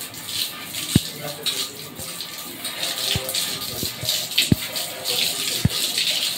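Running water rinsing an air conditioner's dusty mesh air filter, a steady hiss, with several dull knocks along the way.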